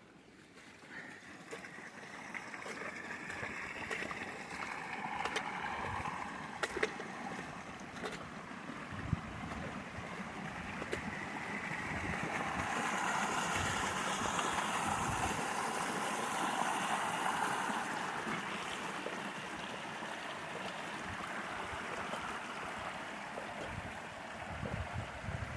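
Floodwater rushing steadily, louder in the middle, with a few sharp knocks.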